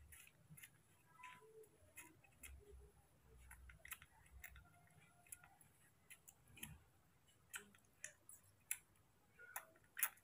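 Faint, irregular wet clicks and smacks of a baby monkey chewing and sucking on a peeled orange segment, with a sharper click near the end.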